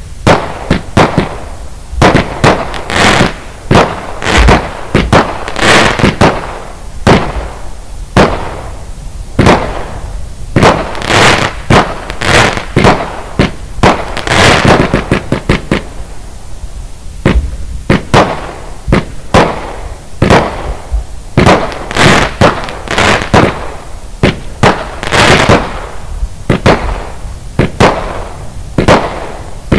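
Lesli Fireworks 'Texas Tornado' multi-shot consumer firework cake firing its tubes in quick succession. It is a long unbroken string of loud shots and aerial bangs, about one or two a second.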